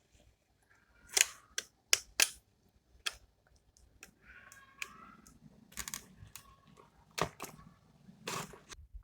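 Clicks and knocks of a pencil box and its contents being handled, with a brief scraping rub about four seconds in and a longer scrape near the end.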